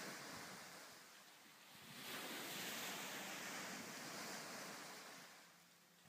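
Waves breaking and swashing up and back down a sand beach in a large wave flume, the erosive surf that is cutting a beach scarp: a rushing hiss of water that eases about a second in, swells again near two seconds, and fades toward the end.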